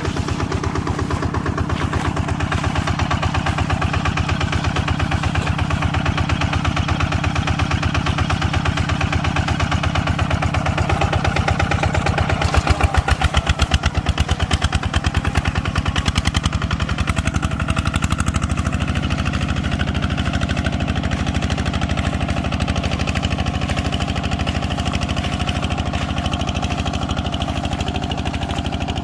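Tractor engine running steadily, its separate firing beats clearly heard. About twelve seconds in it slows and gets louder for a few seconds, then settles back to a steady run.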